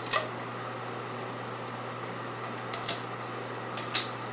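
Three short sharp clicks as a silicone radiator hose is handled and trimmed by hand, over a steady low hum: one right at the start, then two close together about 3 and 4 seconds in.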